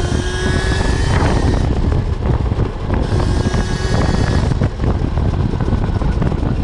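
Wind rushing over the microphone while riding an electric-converted KTM Duke 790, with the whine of its QS138 electric motor and drivetrain rising slightly in pitch during the first second or so and returning faintly about three to four seconds in.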